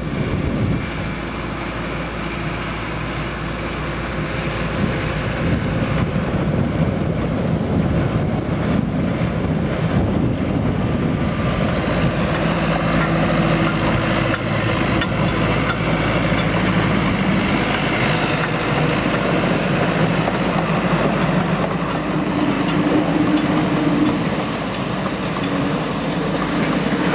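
A 2 ft gauge narrow-gauge train, its Alan Keef diesel locomotive hauling open coaches, running past and on along the track. It grows louder over the first several seconds as it approaches, then holds steady.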